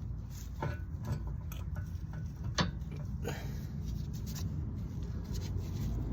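A few light clicks and knocks from handling hard parts, the sharpest about two and a half seconds in, over a steady low rumble.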